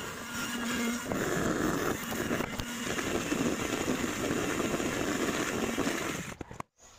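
Electric hand mixer running, its beaters beating butter in a plastic bowl; the motor cuts off shortly before the end.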